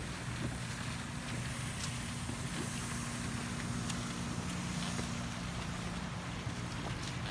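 A steady low mechanical hum under an even hiss, with a few faint clicks.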